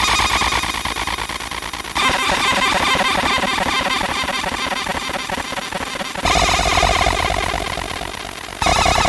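A 30-watt laser engraver marking aluminum: a harsh, dense electronic buzz that switches abruptly to a different pitch and texture about two seconds in, again after six seconds and again near the end.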